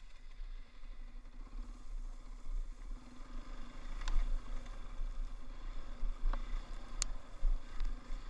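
KTM dirt bike's single-cylinder engine running at low revs with a fast, even firing pulse, under a low wind rumble on the microphone. Two sharp clicks cut through, one about halfway through and a louder one near the end.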